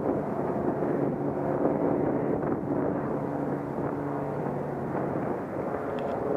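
Steady drone of an engine holding several pitches, with wind rumbling on the microphone. A second, higher-pitched drone comes in near the end.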